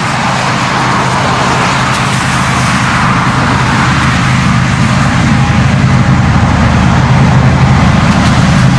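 Road traffic passing on a highway, with the rush of tyres on pavement. Underneath is the steady low rumble of an approaching Union Pacific diesel locomotive, which grows louder as it nears.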